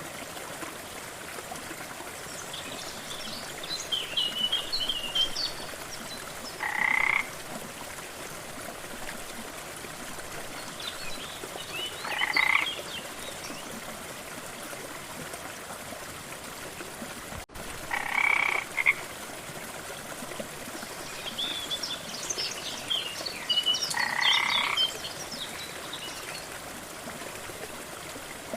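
Frogs calling: a short croak repeated about every five to six seconds, with higher, quicker chirps between. Under them runs the steady rush of a waterfall.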